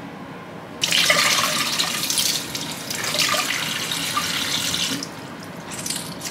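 Kitchen tap running into the sink while a cloth is rinsed under the stream. The water comes on suddenly about a second in and stops about a second before the end, followed by a brief splash.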